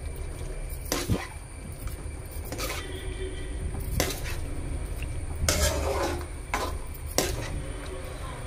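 Perforated metal ladle stirring a thick quail and potato gravy in a metal pan, knocking and scraping against the pan's sides and base about eight times at an uneven pace.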